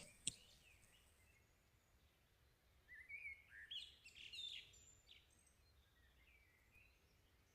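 Near silence, with a few faint bird chirps about three to four and a half seconds in.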